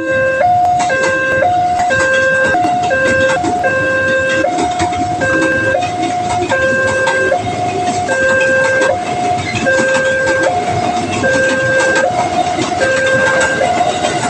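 Railway level-crossing warning alarm sounding a two-tone electronic signal that keeps switching between a higher and a lower pitch, roughly every half second to a second. Under it runs a steady rumble with rapid clatter, fitting a train passing over the crossing.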